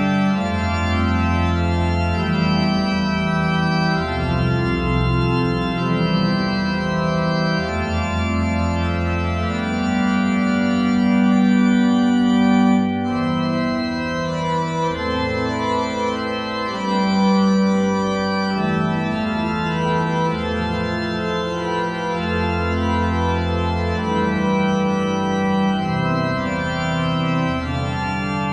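Calm background music of long, held keyboard chords that change every few seconds, with no beat.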